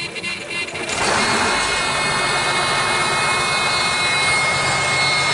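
A big truck's engine is cranked over slowly by its starter and catches about a second in, then runs loudly and steadily. The slow cranking goes with the battery voltage dropping very low, which points to undercharged batteries or a weak cable.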